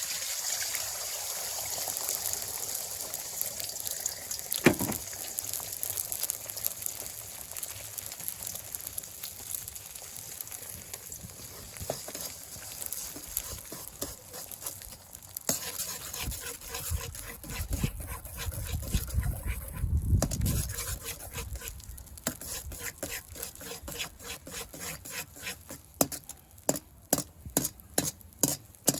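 Food sizzling in a two-handled wok while a spatula stirs and scrapes against the metal, with scattered clicks. Near the end the spatula taps the wok in a regular run of sharp knocks, about two a second.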